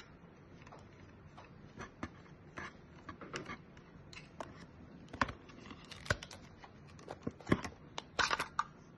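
Scattered small clicks and taps from hands handling a plastic smart video doorbell, with a quick run of several clicks near the end.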